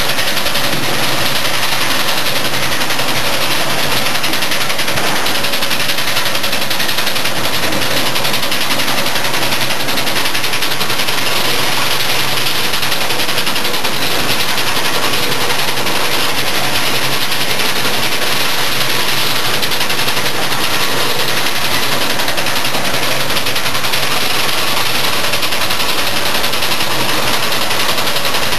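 Rotary monoblock filling machine for lubricant-oil jugs running: a loud, steady, even mechanical noise with a fine fast rattle in it.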